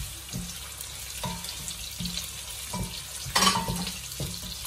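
Freshly added sliced onions sizzling in hot oil in a nonstick pot, stirred with a wooden spatula. The spatula strokes scrape and knock against the pot about once a second, with the loudest stroke a little after three seconds in.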